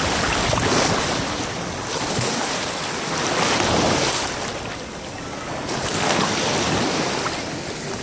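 Shallow surf washing and splashing close by, swelling and easing every two to three seconds, with some wind noise on the microphone.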